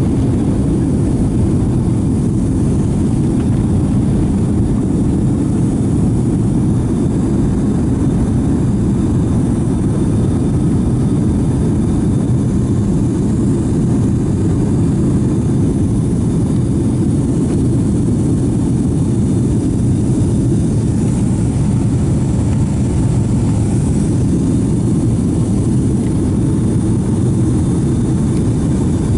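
Steady roar inside the cabin of a Boeing 757-200 during the climb-out after takeoff: engine and airflow noise, deep and unchanging.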